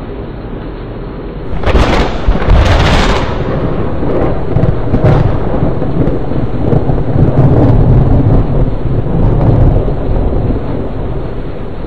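Thunderclap over a heavy, steady downpour: sharp cracks about two and three seconds in and again around five seconds, then a long low rumble of thunder that fades near the end.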